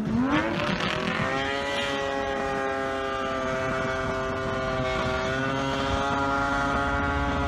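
Boat's outboard motor revving up sharply in the first second or so as the boat runs up onto the rocks and the propeller leaves the water, then holding a high, steady pitch. An outboard racing out of the water like this can burn up its lower unit.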